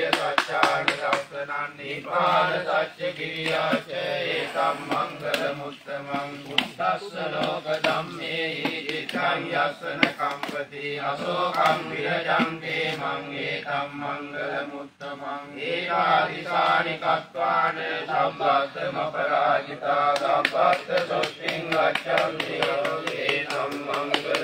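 Male voice chanting Buddhist pirith verses in Pali, a steady continuous recitation.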